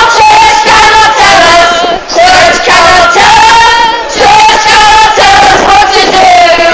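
Group of women singing loudly at close range in long held notes, one voice amplified through a handheld megaphone.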